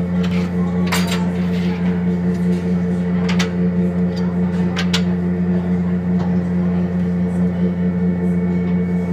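Steady, loud machinery hum from a cruise ship's deck, a low drone with a few fixed tones that never changes, with a few sharp clicks about one, three and five seconds in.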